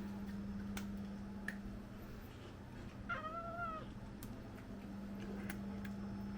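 A house cat meowing once, a single call under a second long about three seconds in, over a steady low hum.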